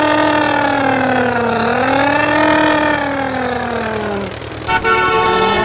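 A person's voice drawing out long wavering tones that rise and fall slowly in pitch, breaking off a little after four seconds before a steadier, higher tone starts near the end.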